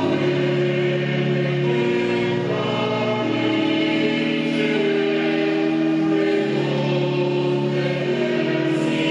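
Choral music: a choir singing slow, held chords that change every second or two.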